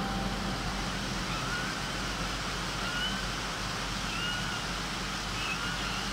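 Newborn puppy whimpering: a series of short, high, rising-and-falling squeaky cries about a second apart, over a steady background hum.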